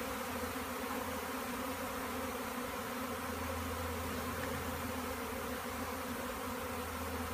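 Large swarm of honey bees buzzing: a steady, dense hum of many bees at once.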